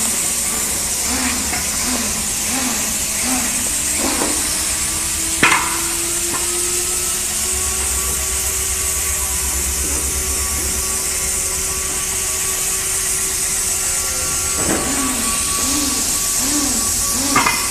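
Small CNC router running: a steady high hiss and whine, with short repeating moves near the start and again near the end, and a single sharp click about five seconds in.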